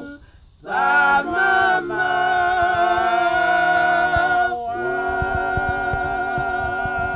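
Three voices, a man and two women, singing a cappella in harmony. They come in after a brief pause and hold long sustained notes, shifting chord twice, as the closing chord of the hymn.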